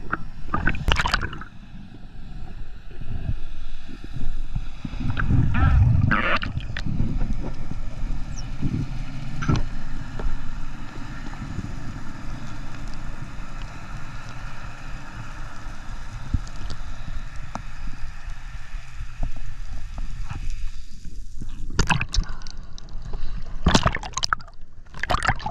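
Muffled underwater water noise heard through a diving camera: a low, steady sloshing and gurgling, with a few sharp knocks. Near the end come several splashes as the camera breaks the surface.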